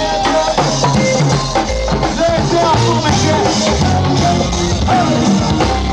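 Live go-go band music: drum kit and percussion keep a steady beat, with voices over it.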